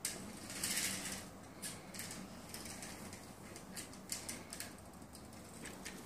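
Small toy car pushed back and forth on a marble floor, its wheels and gears making faint scraping and clicking, loudest about a second in.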